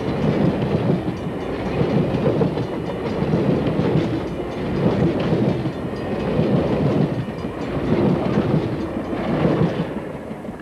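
Amtrak passenger train's bi-level stainless-steel cars passing close by, the wheel and rail noise swelling and dipping as each car goes by. It starts to fade near the end as the last car passes.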